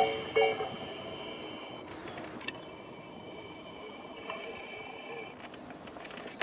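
Japanese level-crossing warning bell sounding its last electronic strokes and stopping about half a second in, followed by a faint steady high-pitched whine that cuts off about five seconds in.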